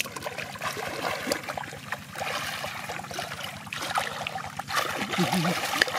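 Hands splashing and sloshing through shallow muddy water while groping for fish, many small splashes on top of steady water noise. A short low-pitched sound comes about five seconds in.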